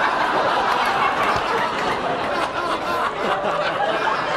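Studio audience laughing, many voices together at a steady level.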